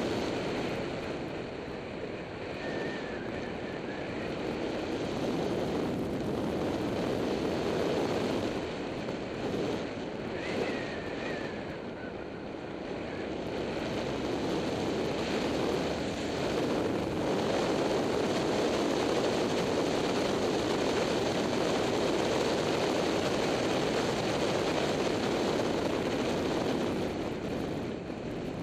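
Motorbike on the move, heard through a bike-mounted action camera: steady wind rush over the microphone with the engine beneath it, growing a little louder in the second half.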